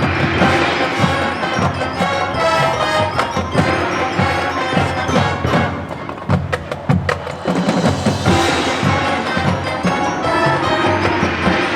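Marching band playing: brass and wind lines over percussion strikes. About six seconds in the brass thins and the percussion carries a short stretch, then the full band comes back in.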